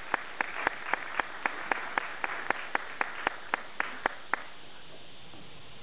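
Audience applause, with one person clapping close by at about four claps a second; the applause dies away about four and a half seconds in.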